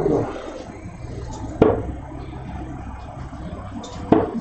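Two steel-tip darts striking a Winmau Blade 6 bristle dartboard: sharp thuds about a second and a half in and again near the end, over a low steady hum.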